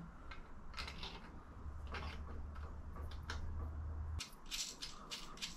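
Small metal clicks and taps of new studs and nuts being handled and fitted to an engine, with a steady low hum that cuts off about four seconds in.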